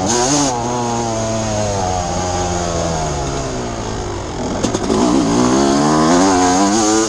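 Suzuki RM250 two-stroke motocross engine under way on a dirt track, its note falling slowly as the throttle is eased for a bend, then revving back up after about four and a half seconds and holding high.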